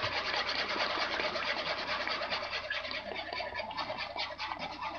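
A utensil stirring quickly round a pot of boiling gravy, with fast, uneven scraping and clicking against the pan. This is the steady stirring that keeps the roux from forming lumps as it goes into the boiling liquid.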